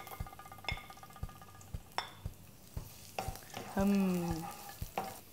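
Sliced shallots and garlic sizzling in hot oil in a nonstick frying pan, while a spatula stirs them with sharp, irregular clicks and taps against the pan.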